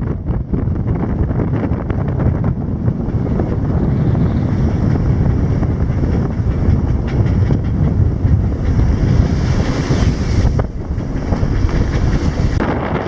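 Strong wind buffeting the microphone over the rush of waves and spray along a sailing yacht's hull in rough sea.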